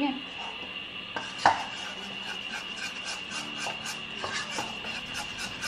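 Spoon stirring and scraping a thick glaze of powdered mix and water around a mixing bowl in quick repeated strokes, about three a second, with a sharper knock against the bowl about a second and a half in.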